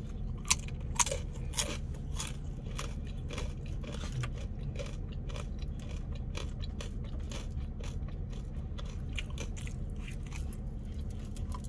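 Close-miked chewing of crunchy food, most likely the home-fried tortilla chips: sharp crunches come about every half second at first, then softer, sparser chewing. A steady low hum runs underneath.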